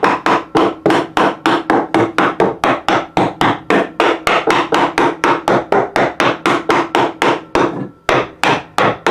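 A hammer tapping a freshly cut wooden board into place in a tight-fitting frame: rapid, even strikes on wood, about four a second, with a short pause near the end.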